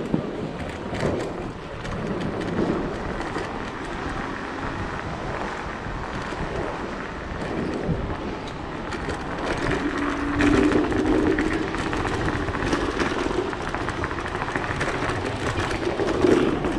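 Steady rushing ride noise from a moving Sherman electric unicycle, with a short low hum a little past the middle.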